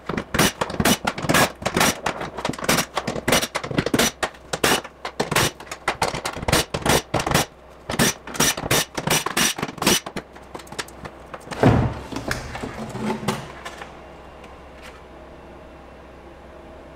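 Cordless drill-driver running in rapid short bursts, about three a second, as it spins out a row of bolts; a loud thump and a few weaker knocks follow about two-thirds of the way in.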